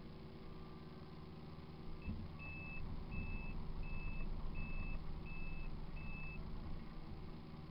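Kubota KX057 mini excavator's diesel engine running, heard from inside the cab. About two seconds in it picks up under load and a travel alarm beeps six times, evenly spaced, as the machine moves.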